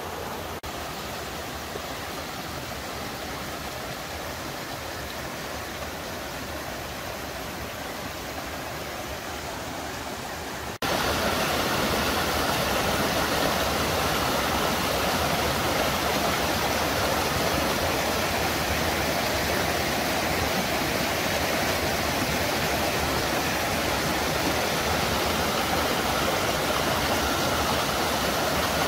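Steady rushing of water over a rocky waterfall, which suddenly gets louder about eleven seconds in and holds steady after.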